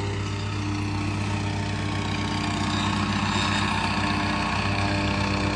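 Small gas engine of a compactor running steadily as the crew tamps down the fill under a slab, a fast even pulsing under the engine drone, growing slightly louder.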